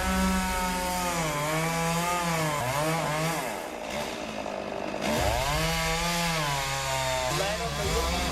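Chainsaw cutting into a palm trunk, its engine pitch sagging and rising again several times as the chain bites and the load changes. It gets a little louder about five seconds in.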